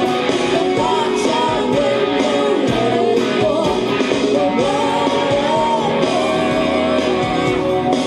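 Stratocaster-style electric guitar playing a lead solo with bent, gliding notes over a full band backing track with drums.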